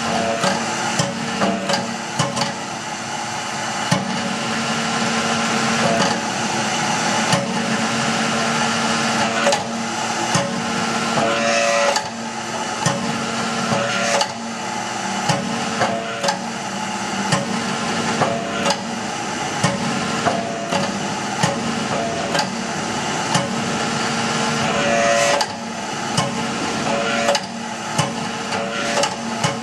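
Blacksmith forging press running with a steady machine hum, with many sharp metallic knocks every half second to a second as it draws out a workpiece.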